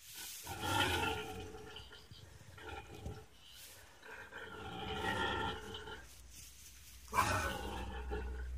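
A pig letting out three long, harsh squealing grunts, with a short weaker one between the first two, the first and last loudest: a protest at a pony nibbling at its ear.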